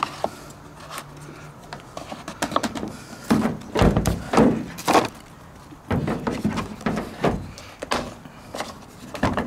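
Irregular plastic clicks and knocks as the tool-free side-cover knob of a Zombi corded electric chainsaw is turned and handled by hand; the saw's motor is not running.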